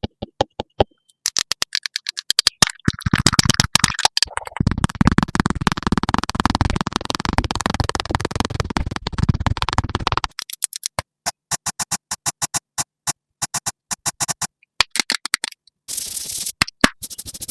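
Electronic music made of fast, sharp clicks, with a fuller, denser stretch from about three to ten seconds in.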